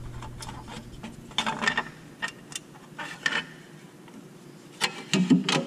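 Short clicks and scraping metal clatter as a loosened metal cover plate is worked out by hand from behind the exhaust bracket, with the loudest clatter near the end.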